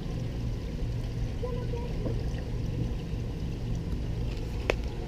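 Water running steadily through a wooden gem-mining sluice flume, with a single sharp click near the end.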